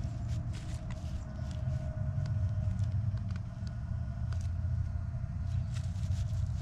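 Gloved hand scratching and brushing through dry grass and thatch, with a pinpointer probe poked into the turf, as a run of short scrapes and ticks over a steady low rumble.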